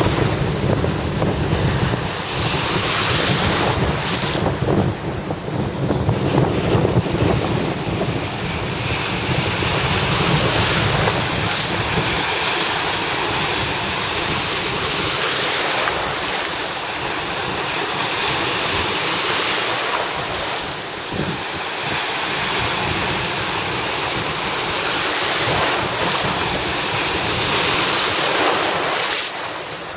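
Small surf washing and breaking in shallow water, with heavy wind buffeting the microphone; the noise swells and ebbs every few seconds.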